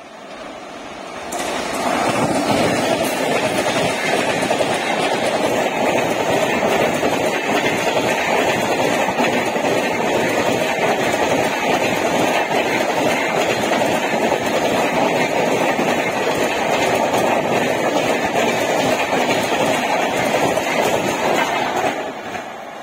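An express train of LHB coaches, hauled by a WAP-7 electric locomotive, passing close at speed. The noise rises suddenly about two seconds in, becomes a steady rush of wheels on rail with rapid clicking, and falls away near the end as the last coach goes by.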